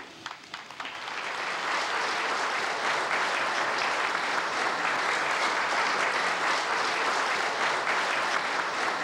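Audience applauding: a few scattered claps at first, quickly filling out into steady, sustained applause from a large crowd.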